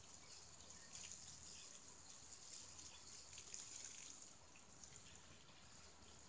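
Faint, steady hiss and patter of water from a garden hose pouring onto a compost pile's layer of grass clippings, with small scattered spatters.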